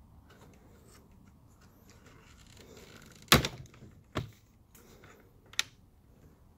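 Three sharp plastic clicks and knocks inside a 2017 Audi S3 8V rear door as a blue plastic clip on a rod is worked loose by hand. The first, about three seconds in, is the loudest; the next comes a second later and the last near the end.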